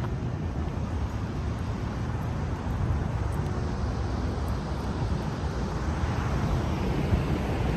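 City street ambience: a steady wash of road traffic, with wind buffeting the microphone in a low, fluttering rumble.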